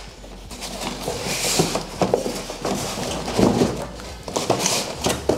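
A cardboard monitor box and its packing being handled and tugged at: irregular rustling, scraping and knocking as the monitor is worked out of the box.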